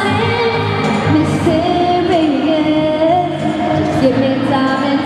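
A woman singing live into a microphone over amplified backing music, holding long notes.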